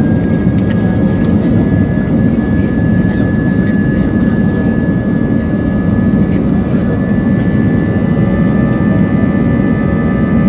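Airbus A320's jet engines running at takeoff power, heard from the cabin: a loud steady roar with a high engine whine held at a constant pitch.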